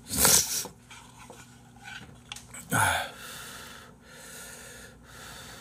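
A person eating spicy instant ramen close to the microphone: two loud breathy bursts, one near the start and one just under three seconds in, then softer hissy slurping as the noodles are drawn in.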